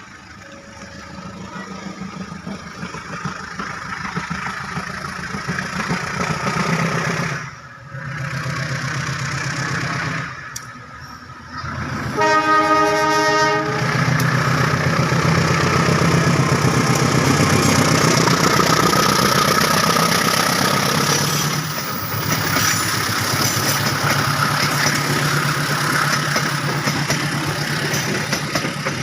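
CC 203 diesel-electric locomotive working past with its engine running loud, and one horn blast of about a second and a half near the middle of the passage; the engine noise builds up before the horn and stays loud afterwards.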